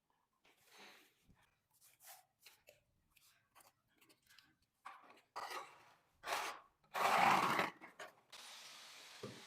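Irregular scraping and rubbing strokes of floor-tiling work, short ones at first, then louder ones, the longest about seven seconds in. A faint steady hiss sets in near the end.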